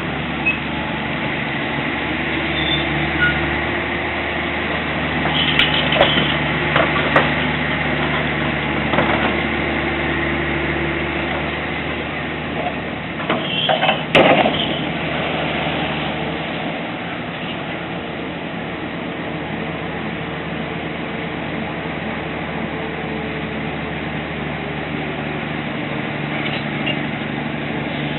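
An engine running steadily, with a few sharp knocks about six and fourteen seconds in.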